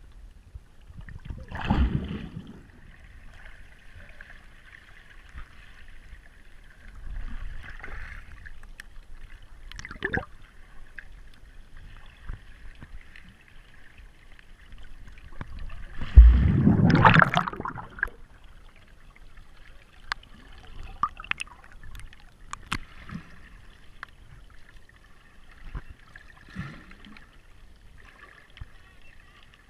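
Underwater sound picked up by a submerged camera: muffled water movement and gurgling, with a faint steady high hum and scattered sharp clicks. Louder rushing surges of water noise come about two seconds in and again around sixteen to eighteen seconds.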